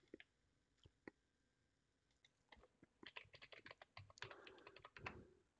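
Faint typing on a computer keyboard: a few scattered clicks, then a quick run of keystrokes from about halfway in.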